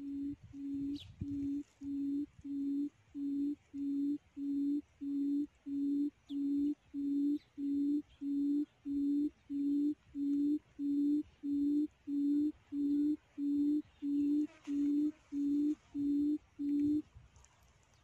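Quail call used as a trap lure: a low, pure hoot repeated about one and a half times a second, stopping about 17 seconds in. A few faint high bird chirps sound above it.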